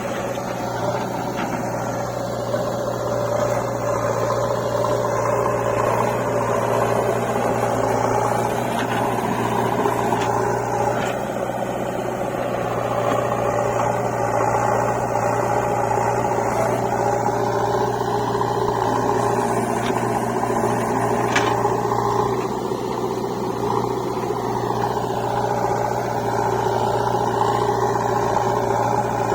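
Diesel engine of heavy earth-moving machinery running steadily at a constant speed, with a deep even hum and no marked revving.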